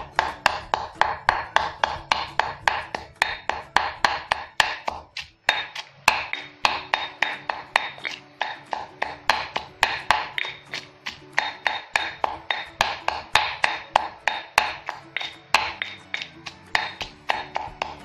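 Granite pestle pounding curry paste in a granite mortar: a steady run of stone thuds, about three a second, with a brief pause about five seconds in.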